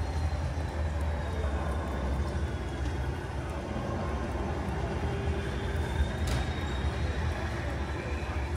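Steady rain falling, an even hiss over a constant low rumble, with a faint high whine and a single sharp tick about six seconds in.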